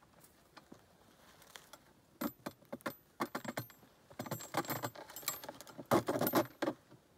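Small metal parts and wire jangling and clicking against a plastic marten trap box as it is handled, in two bunches of rattles, the louder one about six seconds in.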